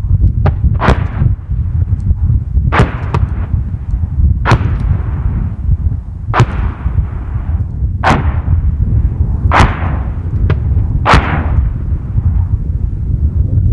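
Mortar fire: about ten sharp, distant reports one to two seconds apart, each trailing off in an echo. A steady rumble of wind on the microphone runs underneath.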